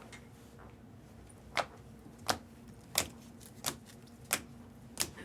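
Trading cards being laid down one at a time, a sharp click about every two-thirds of a second, six in a row starting about a second and a half in.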